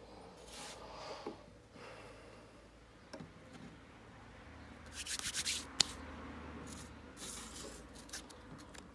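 Hands handling a thin wooden stick and a card model-plane cutout on a tabletop: soft rubbing and rustling of card and wood, with a quick run of scratchy ticks about halfway through and one sharp click just after.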